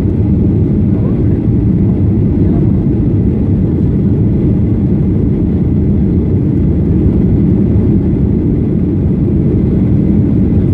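Steady cabin noise of a Boeing 737-800 in flight: a low, even rumble of its CFM56-7B engines and air rushing past the fuselage.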